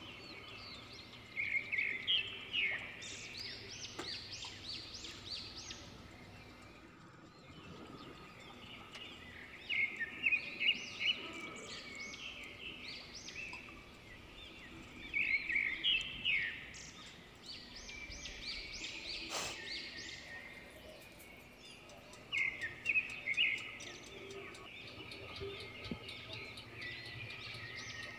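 Birds chirping: bursts of quick, high chirps that come back every six or seven seconds, over a faint steady hum.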